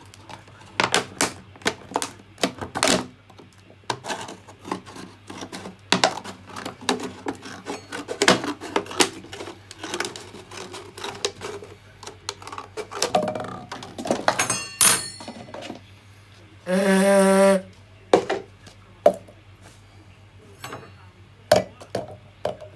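Thin clear plastic bottle crinkling and crackling as it is cut apart, with many sharp snips and clicks. About three-quarters of the way through, a loud, buzzy tone lasts under a second, followed by a few knocks as a spoon is set into the cut bottle.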